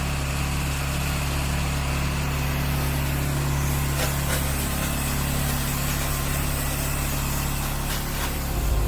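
Pressure washer engine running steadily, with the hiss of water spraying from an M5 twist nozzle on a soft-wash line.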